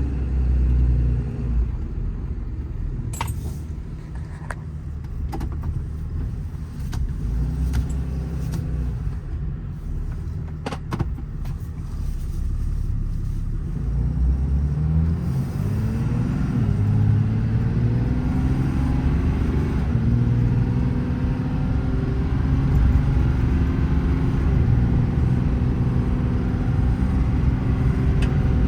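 Ram 5500's Cummins 6.7-litre inline-six turbo-diesel under way on a road, with a few sharp clicks in the first half. About halfway through, the engine note climbs as the truck accelerates, then holds fairly steady.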